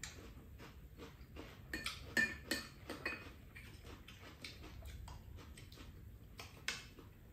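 Spoons clinking and scraping against ceramic bowls and a shared pan as two people eat: a run of irregular light clicks, busiest about two to three seconds in, with one more sharp clink near the end.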